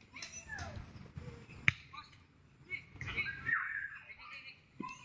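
Distant shouts and calls from football players on the pitch, with one sharp, loud knock a little under two seconds in.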